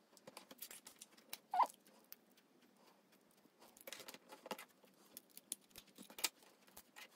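Plastic Lego bricks clicking and rattling faintly as hands press pieces onto a model, with one sharper click about a second and a half in.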